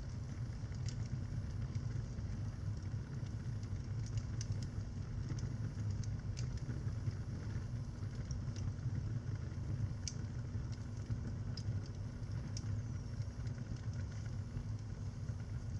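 Fire burning in a fireplace: a steady low rumble of the flames with scattered small crackles and pops.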